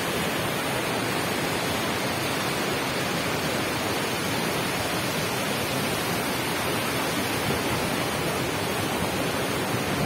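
Fast mountain stream rushing over boulders: a steady, unbroken sound of white water.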